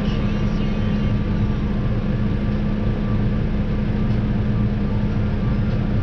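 Tractor engine running steadily, heard from inside the cab as a constant low drone with a steady hum.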